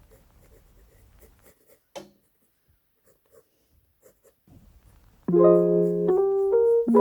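Piano music dies away, leaving a few seconds of faint pencil scratching on paper, then piano chords start again about five seconds in.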